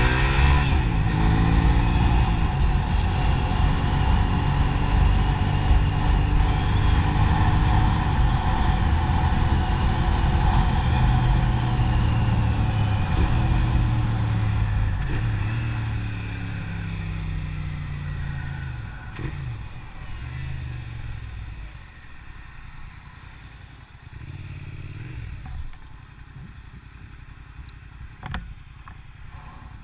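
Motor vehicle engine under way: it climbs in pitch as it accelerates at the start, runs steadily for some ten seconds, then winds down and settles to a much quieter running, with a brief rise about twenty-five seconds in.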